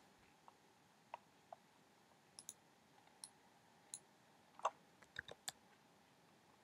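Faint, scattered clicks of a computer mouse, about a dozen at irregular intervals, the loudest a little past the middle.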